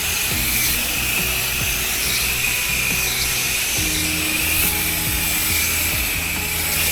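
Background music over the steady high-pitched hiss and whine of a pressure-washer surface cleaner spraying a deck.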